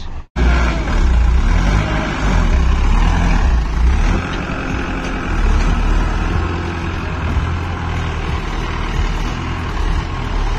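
Diesel tractor engines running under load as a Powertrac front-loader tractor digs wet sand, a steady, loud engine rumble. The sound drops out for a moment near the start.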